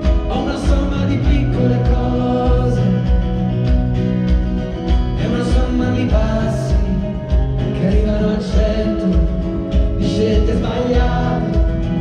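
Live band music heard from the audience seats of a concert hall, with a steady drum beat under sustained pitched instruments.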